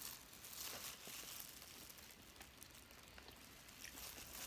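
Faint chewing of food, with scattered soft mouth clicks.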